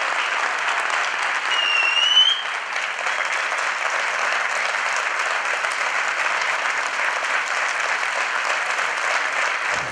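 Audience applauding steadily, with a short rising whistle from the crowd about two seconds in. The applause cuts off just before the end.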